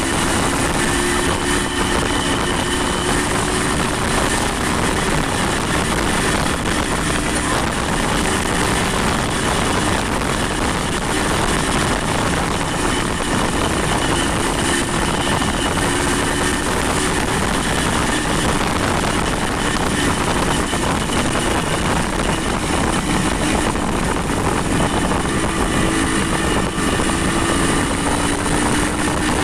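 A vehicle on the move: a loud, steady rush of noise with an engine tone that slowly rises and falls.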